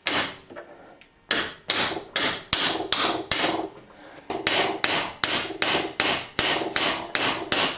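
Repeated sharp metal-on-metal hammer taps, about three a second with a short pause partway through, each ringing briefly: a sharpened high-speed steel blank is being struck to cut gripping ridges into the smooth steel bar of an I-beam clamp whose clutch slips.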